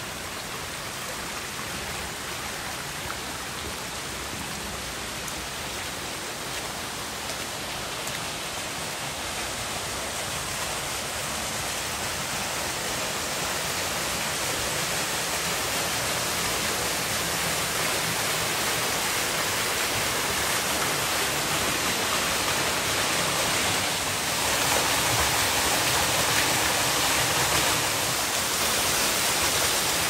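Steady rush of water pouring down a small waterfall, growing gradually louder.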